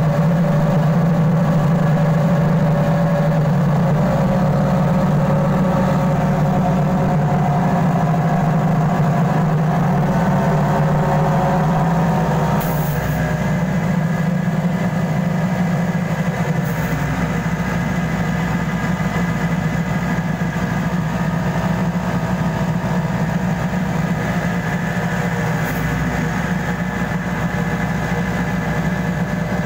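Mobile engine-driven rice huller running steadily while milling rice: a continuous, even machine drone.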